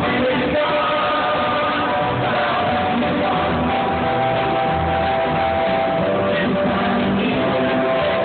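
Rock band playing a song live, with guitars and drums, recorded from the audience on a phone in a large concert hall.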